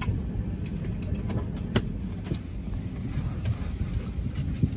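Steady low rumble inside the cabin of an Airbus A320 parked at the gate before pushback, with a few light knocks.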